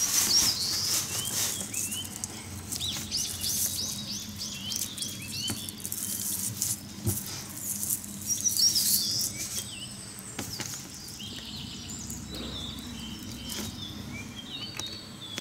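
Small birds chirping on and off in short repeated calls, over the light crackle and rustle of dry natural-material model tree branches being torn apart and handled on newspaper.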